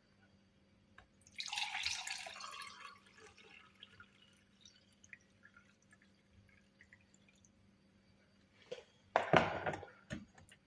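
Liquid pouring for about a second and a half, followed by a few scattered drips. Near the end there is a second, shorter and louder pouring or splashing sound with a couple of small clicks around it.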